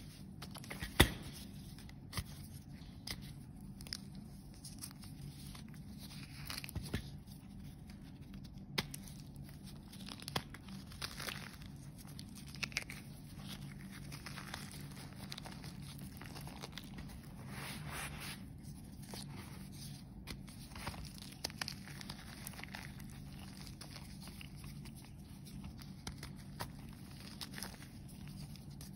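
Fingers crushing and crumbling chunks of dyed, reformed gym chalk: dry crunching and crackling with scattered sharp snaps, the loudest about a second in.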